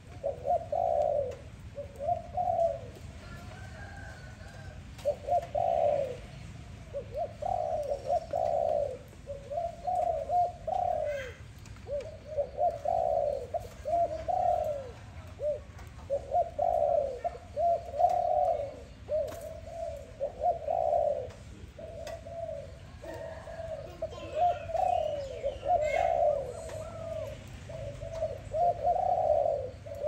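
Spotted dove cooing, phrase after phrase with short pauses and one longer pause a few seconds in.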